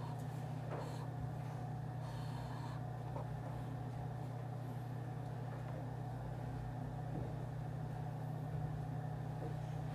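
Office room ambience: a steady low hum with a few faint, scattered taps and clicks.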